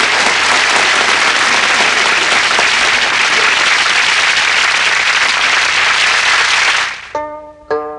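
Audience applauding steadily, cutting off about seven seconds in, when a plucked-string tune starts.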